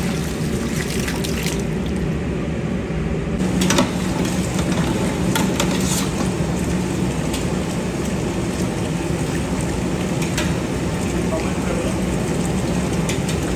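Water running from a tap into a large steel pot of hot spiced tomato masala, a steady rushing with scattered clicks, over a steady low hum.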